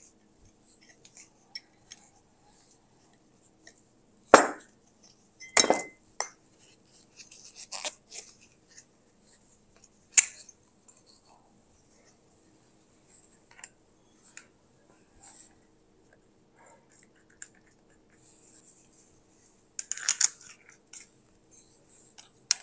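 Metal accessories being fitted by hand onto a CO2 (MIG) welding torch: scattered clicks and clinks of small hard parts, with sharp knocks about four and a half, six and ten seconds in and a quick run of clicks near the end.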